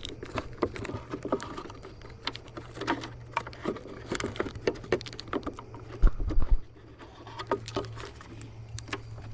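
Irregular small clicks and rustling of hands handling plastic marker-light housings, bulbs and wiring, over a steady low hum, with a few heavy low thumps about six seconds in.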